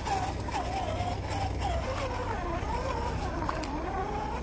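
Electric drive motor and gearbox of a 1/10-scale RC rock crawler whining, the pitch rising and falling continuously as the throttle changes while it climbs over rocks, with a few faint clicks.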